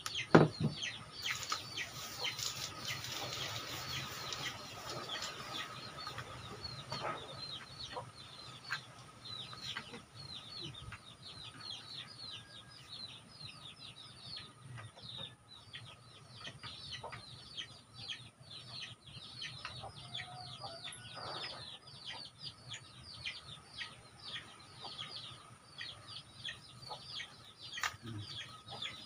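Chickens clucking and peeping, with many short, high, falling chirps repeating throughout. A single sharp knock comes just after the start.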